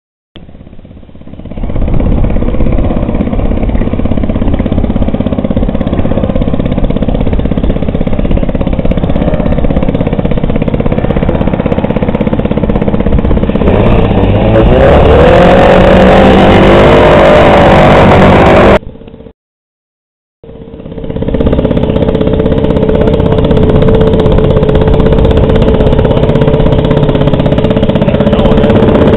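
1907 Waterman outboard motor, a single-cylinder two-stroke, running under way with a rapid, even popping beat. It grows louder and brighter for a few seconds about halfway through, cuts out to silence for about a second, then resumes.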